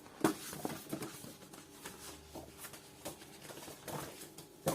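Packaging rustling, with scattered light clicks and knocks from items being handled, the sharpest about a quarter second in and just before the end.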